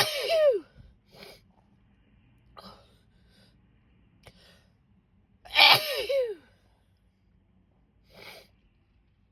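A woman sneezing twice, about five and a half seconds apart, each sneeze ending in a falling voiced tail. Short, quieter breaths come in between and once more near the end.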